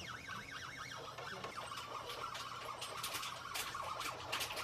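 Stepper motors of a CNC 3018 engraver driving the laser head, whining in short rising and falling tones as the axes speed up and slow down between moves, with a few faint ticks near the end.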